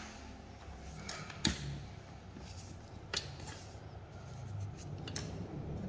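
A few sharp clicks and taps of hard plastic and metal being handled as a clear acrylic stand piece is fitted to a Brompton folding bike's crank. The loudest click comes about a second and a half in, with others about three and five seconds in.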